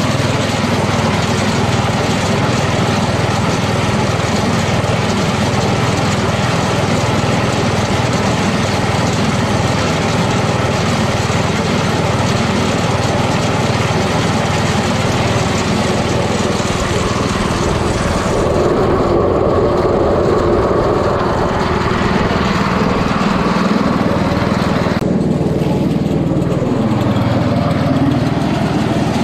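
Briggs & Stratton 8 hp single-cylinder engine of a 1985 Toro 826 two-stage snowblower running smoothly, just after a cold pull start. Its tone shifts about two-thirds of the way through and again a few seconds later.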